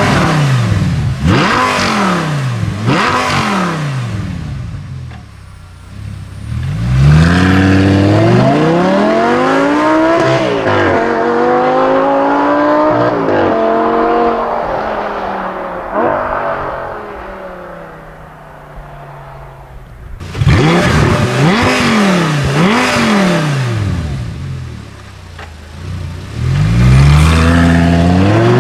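Audi R8 V10 Spyder's 5.2-litre V10 through an Eisenmann stainless-steel rear silencer with exhaust flaps, revved hard: several quick blips, then longer climbs in pitch that step up and fall away, cut off suddenly about two-thirds through, followed by more quick blips and another climb near the end.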